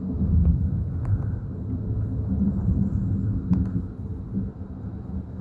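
Rolling thunder: a low rumble that swells about half a second in and rolls on in uneven surges.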